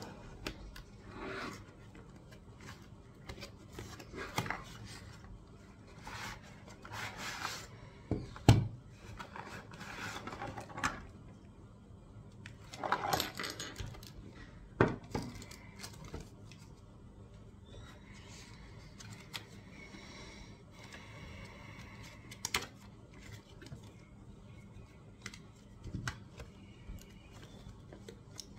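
Packaging handled by hand: plastic wrap and a cardboard box rustled, slid and opened, with scattered knocks of things set down on a wooden table, the sharpest about eight and a half seconds in.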